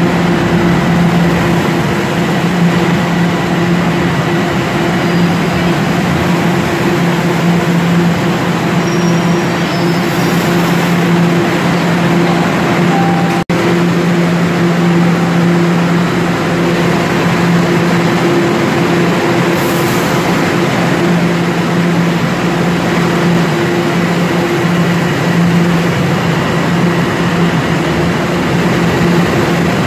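Toronto Rocket subway train running along the station platform: a steady rumble of wheels and traction motors with a constant low hum. The sound drops out for an instant a little before halfway.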